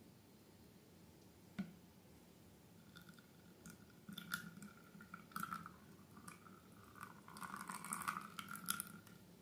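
Slime being squished and worked by hand, giving soft, irregular sticky crackles and squelches. It starts with a single click and builds to a denser patch near the end.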